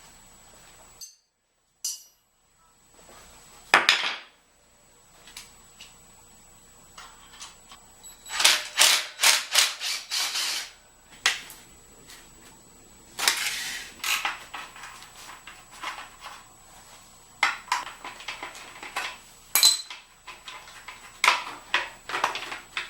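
Metal tools clanking and knocking on a minibike's parts as it is taken apart: scattered sharp clicks and knocks, with short runs of quick strikes.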